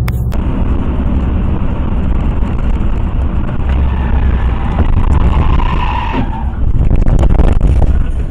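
Car being driven hard: loud, rough road and engine noise heard from inside the car, with a squeal lasting a second or two midway. It grows louder near the end, with several sharp knocks.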